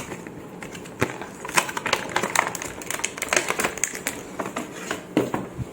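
Camera retail box and its packaging being opened by hand: a rapid, irregular run of clicks, scrapes and crinkles of cardboard and plastic.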